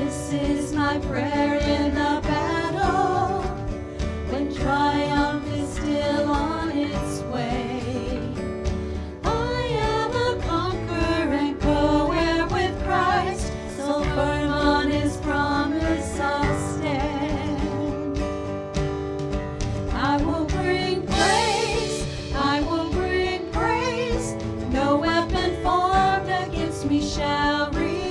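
Live worship band playing a contemporary praise song: several women singing the melody together over strummed acoustic guitar, electric bass and a drum kit.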